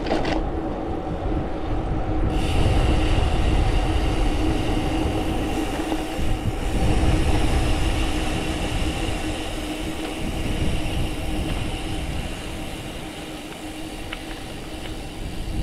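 Wind buffeting the microphone of a bike-mounted action camera while riding, over tyre rolling noise with a steady hum. The low rumble swells for several seconds in the middle, then eases off.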